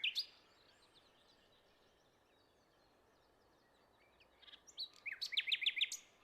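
A small bird chirping: a single high chirp at the start, then near the end a quick run of short, high, falling chirps, several a second, over faint outdoor background.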